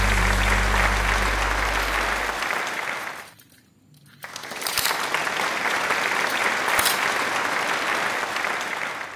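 Crowd applause in two stretches, broken by about a second of near silence a little over three seconds in; each stretch cuts off suddenly.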